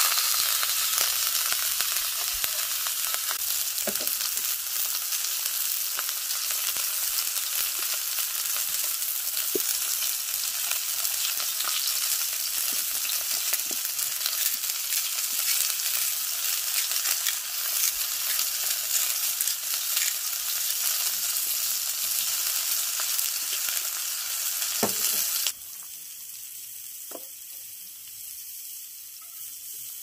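Meat frying in a pan over a portable gas stove burner, a steady sizzle with a few light clicks. The sizzle cuts off suddenly about 25 seconds in, leaving a much quieter background.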